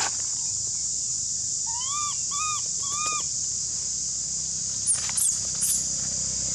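Steady high-pitched insect drone, with a few short arched calls, each rising then falling, in the first half. About five seconds in come two or three shrill upward squeaks, the loudest sounds, from a baby macaque squealing as its mother grabs it.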